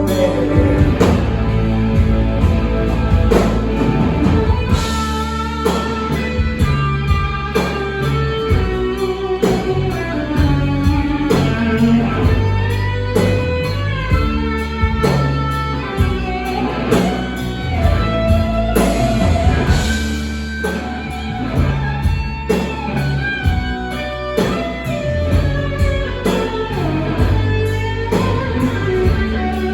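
Live rock band playing an instrumental passage without vocals: an electric guitar lead melody, with bending notes, over steady bass and drums.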